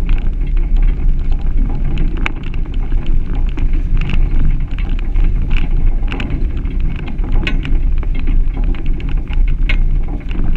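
Suzuki Grand Vitara driving up a gravel track, heard from an externally mounted camera: a steady low rumble of wind buffeting and driving noise, with scattered clicks and pops of stones under the tyres.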